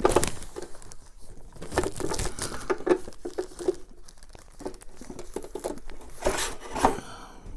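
Clear plastic wrapping crinkling and rustling as a benchtop drill press head wrapped in it is handled and lowered onto its column, in irregular crackles with a few louder ones near the end.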